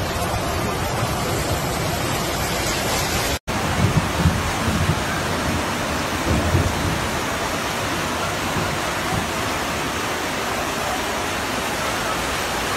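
Flash floodwater rushing through a street, a steady dense rush of noise. It drops out for an instant about three and a half seconds in, then carries on much the same.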